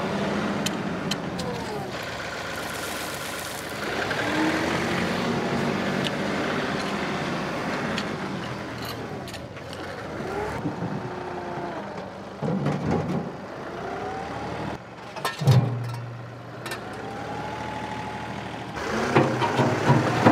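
A John Deere 2038R compact tractor's three-cylinder diesel engine runs under changing load as the loader and backhoe move fill dirt, its pitch rising and falling again and again. A few heavy thumps come in the second half as the bucket works the ground.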